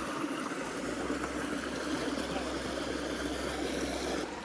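Small mountain waterfall rushing and splashing into a pool, a steady sound of falling water.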